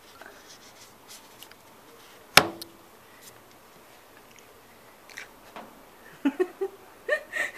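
A single sharp knock on the table about two and a half seconds in, with a short ring. From about five seconds in, a dog's mouth smacking and short, soft whimpers come in quick succession as it waits for a treat.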